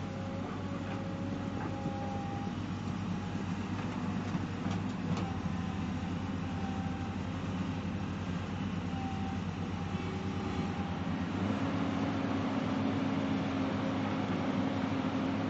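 Tracked excavator's diesel engine running with a steady drone and faint whining tones. About ten seconds in it steps up in pitch and gets louder as the machine starts working its boom.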